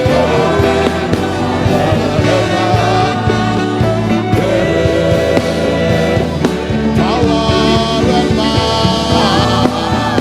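Gospel worship music: a singing voice over a sustained instrumental backing.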